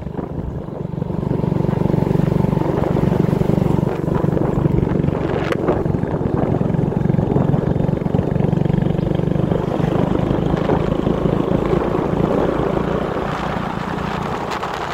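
Motorcycle engine running steadily at an even pitch while riding along a road.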